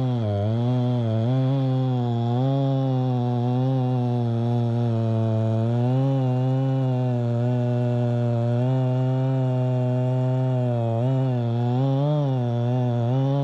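Two-stroke gas chainsaw running at high revs while cutting through wood. Its pitch dips and recovers repeatedly as the chain loads up in the cut.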